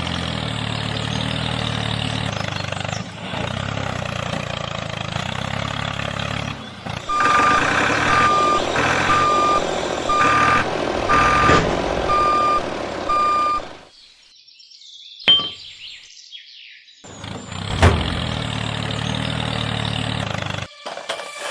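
A heavy vehicle's engine runs steadily, then a reversing alarm beeps about seven times, roughly once a second. The engine drops away briefly with a couple of sharp clicks before running again.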